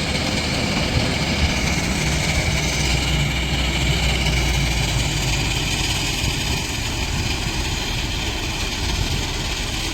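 Heavy diesel engine running steadily, its low drone a little stronger in the first half.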